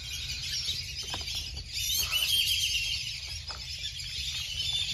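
Small birds chirping in the background, loudest about two seconds in, with a few faint clicks of a Muscovy duck's bill picking dry food pellets off concrete.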